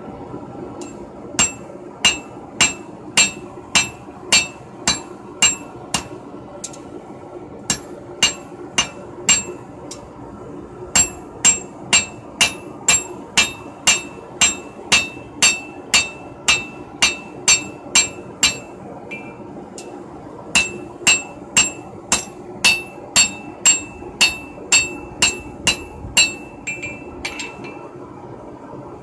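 Hand hammer striking red-hot knife steel on an anvil, about two blows a second, each with a bright ring. The blows come in three runs with short pauses between, ending in a few lighter taps, over a steady low hum.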